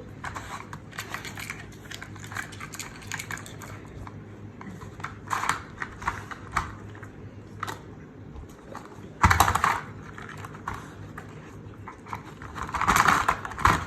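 A dog working at a treat puzzle toy: irregular clicks and clatter of the puzzle's pieces, with a louder clatter about nine seconds in and another near the end as a lid is pulled off.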